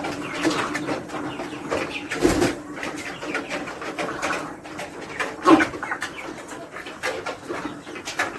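Poultry birds calling in short, overlapping calls, with a couple of louder knocks about two seconds in and again about five and a half seconds in.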